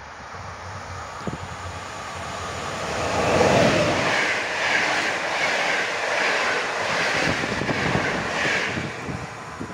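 Passenger train of an EP07 electric locomotive and PKP Intercity coaches passing at speed. The sound builds as the locomotive comes up and goes by about three and a half seconds in. Then the coaches' wheels clatter over the rails in an even rhythm, about one beat every 0.7 s.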